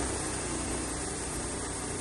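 An engine running steadily at a low idle.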